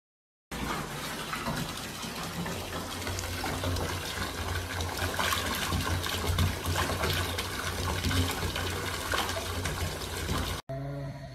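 Water running steadily from a bath mixer tap and pouring into a partly filled bathtub. It starts about half a second in and cuts off suddenly near the end.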